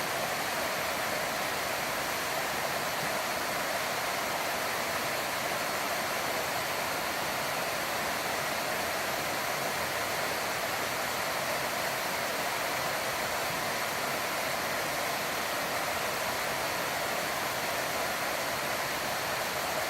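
Steady, unbroken rush of an 8 m waterfall pouring down a mountain stream.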